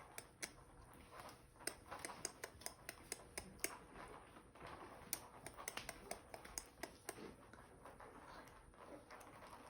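Small nail clippers snipping a young puppy's nails: a quick, irregular run of small sharp clicks, at times several a second.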